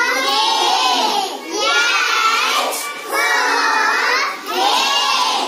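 A class of young children chanting phonics syllables for the e (ए) sound together in a sing-song unison, in short phrases of about a second and a half with a brief pause between each.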